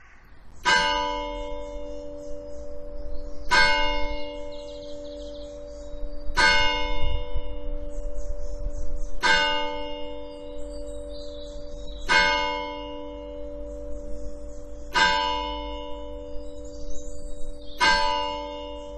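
A single church bell tolling slowly, seven strikes of the same pitch about three seconds apart, each ringing on until the next.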